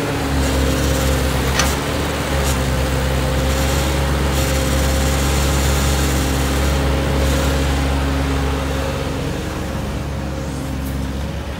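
Kobelco crawler excavator's diesel engine running steadily under load as it digs and swings a bucket of soil. A single sharp knock about a second and a half in.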